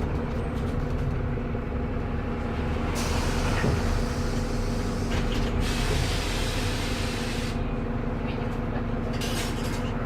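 TransBus Trident double-decker bus's diesel engine running steadily. A long hiss comes in about three seconds in and lasts some four seconds, and a shorter hiss follows near the end.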